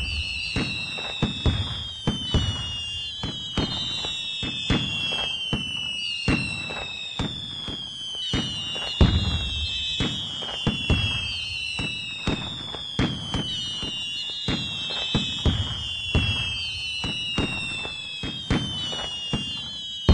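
Fireworks: a string of whistles falling in pitch, one starting every second or so and overlapping, over frequent sharp cracks and bangs.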